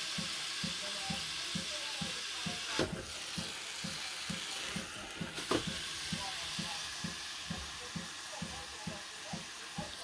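Sucuk slices sizzling in hot oil in a frying pan, a steady hiss, with two sharp clicks about three and five and a half seconds in. A soft low thud repeats about twice a second underneath.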